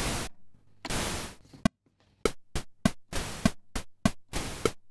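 Synthesized hi-hat from a Behringer Poly D analog synthesizer: pink noise through a resonant high-pass filter. Two longer open hi-hat hits come first. From about two seconds in, a quick, even rhythm of short closed hits follows, with longer open hits among them.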